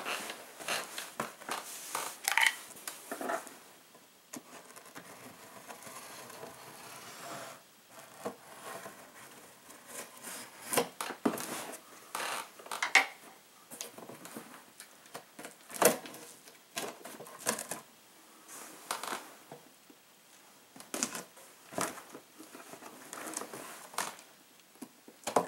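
A Morakniv FireKnife slicing through packing tape on a cardboard shipping box, with irregular scrapes, clicks and taps as the box is handled.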